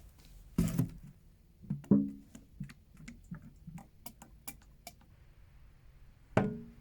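Handling noise as engine oil containers are picked up and readied: three hollow knocks with a short ring, about a second in, two seconds in and near the end, with scattered light clicks between them.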